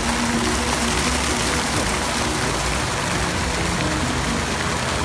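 Fountain jets spraying and splashing into a pool, a steady rushing of water, with some music in the background.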